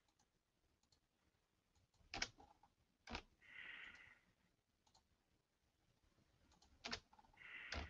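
A computer mouse clicking a few times, single separate clicks against near silence, with two faint short hisses between them.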